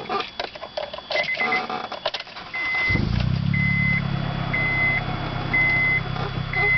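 Acura RSX's 2.0-litre four-cylinder engine starting about three seconds in and then idling steadily, while a dashboard warning chime beeps about once a second. The engine has a spun bearing.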